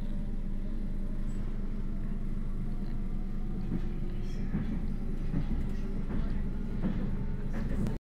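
Interior running noise of a Stadler FLIRT electric multiple-unit train moving along the track: a steady low rumble, with light knocks and rattles in the second half.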